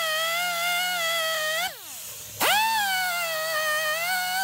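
Straight die grinder with a small wire wheel scrubbing rust off a steel axle housing: a steady high whine with a hiss. It cuts out about two seconds in, the whine falling as the wheel spins down, then starts again half a second later.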